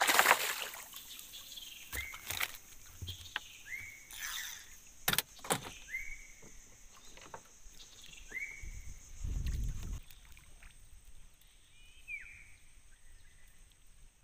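Knocks and splashy handling noises around a small boat on the water, with a short high chirp heard about five times and a low rumble about nine seconds in.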